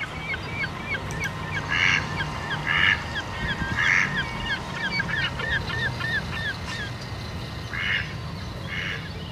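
Birds calling: loud short honk-like calls every second or so, over a fast run of repeated chirps that stops about seven seconds in, with a low steady hum underneath.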